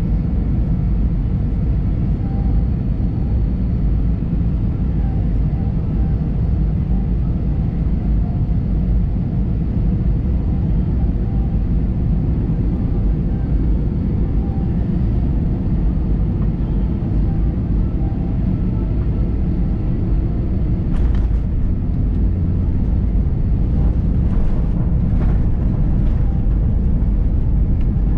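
Steady low rumble inside an Airbus A320-232 cabin in flight, from its IAE V2500 turbofan engines and the airflow over the fuselage. A few brief knocks or rustles come about three-quarters of the way through.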